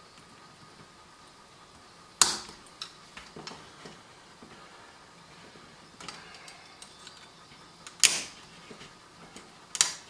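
Plastic trim ring being pried and snapped off a motorcycle gauge housing: three sharp plastic clicks, about two seconds in, about eight seconds in and just before the end, with lighter ticks and creaks between.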